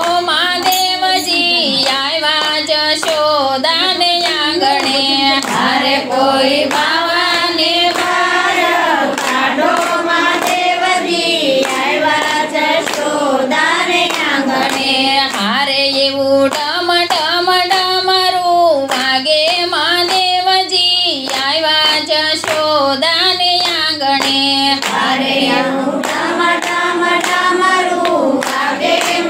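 A group singing a Gujarati devotional kirtan, with steady hand clapping keeping the beat.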